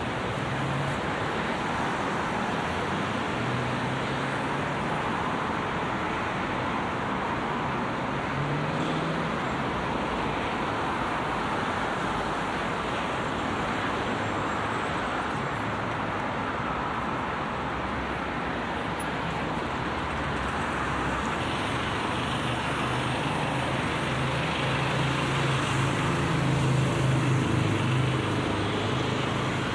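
Steady road traffic: cars, taxis and buses passing along a busy multi-lane city road, with a low engine hum under the tyre noise. One vehicle's engine passes close and is loudest near the end.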